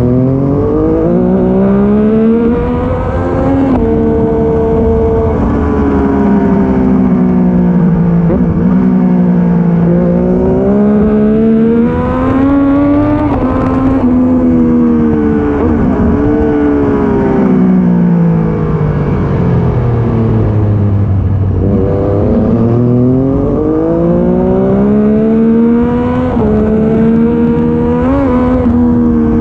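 Triumph Daytona 675's three-cylinder engine under hard racing use, recorded on board: its pitch climbs in steps through the gears under acceleration and falls back under braking, again and again.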